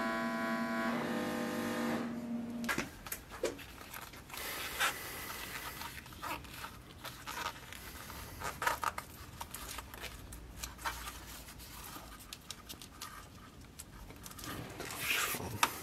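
A steady buzzing hum that stops about three seconds in, then scattered small clicks, taps and rustles of hands handling leather straps and metal rivets on a workbench.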